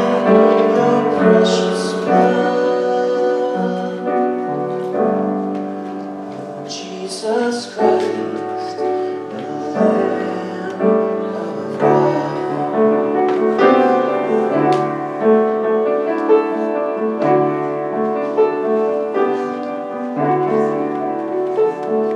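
Slow instrumental church music on a keyboard: held chords with a melody moving over them.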